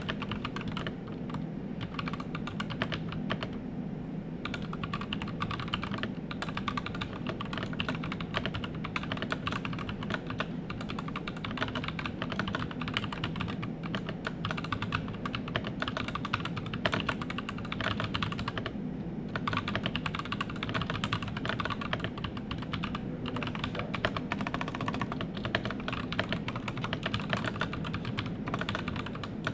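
Continuous typing on a 61-key mechanical keyboard fitted with TECSEE Purple Panda tactile switches (long POM stem, PME housing), a rapid run of keystroke clicks with brief pauses at about four seconds and about nineteen seconds in.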